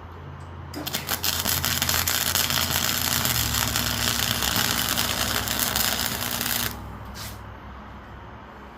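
Flux-core wire welder arc crackling steadily for about six seconds, starting just under a second in and cutting off sharply, over a low steady hum.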